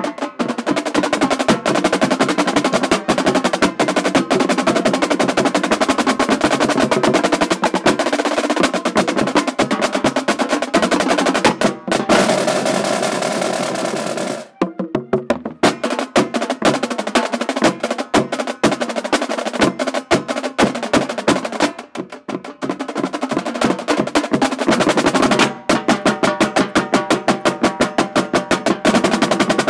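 Marching drumline battery of snare drums, tenor drums and bass drums playing fast, tightly rhythmic passages. About halfway through, a sustained roll cuts off abruptly, and the rapid strokes then start again.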